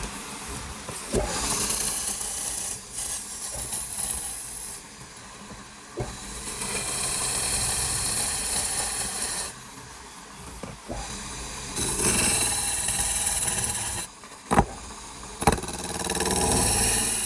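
A power tool working wood in runs of two to three seconds, with short pauses and a few sharp knocks between the runs.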